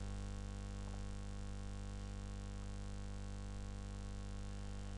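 Steady electrical mains hum with a low hiss, an even background with no other sound.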